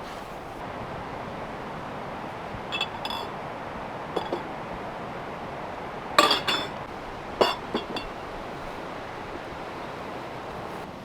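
Glass jars clinking together as they are handled: a few light clinks about three and four seconds in, then louder ones around six and seven and a half seconds in, over a steady hiss.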